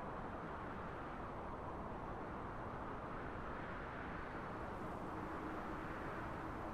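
Wind blowing steadily, a low, even rush that swells gently and eases. A faint steady low tone joins it near the end.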